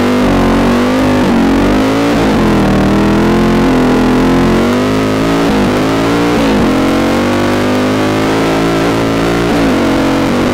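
Dirt bike engine running hard, its pitch rising and dipping repeatedly as the rider works the throttle and shifts.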